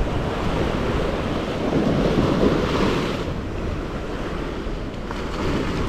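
Surf washing and wind buffeting the microphone, with a surge of wave noise swelling about two seconds in.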